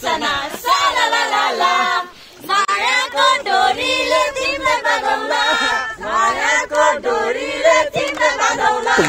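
A group of young men and women singing together unaccompanied, loosely in unison, with a short break about two seconds in.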